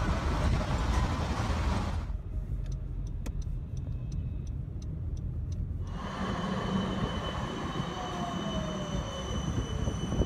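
Melbourne trams moving through street traffic, heard as a run of short clips: first a loud rumble of a passing tram, then a quieter stretch with a row of light ticks. About six seconds in, a low-floor Combino tram's electric drive whines steadily and gives a falling tone as it moves past.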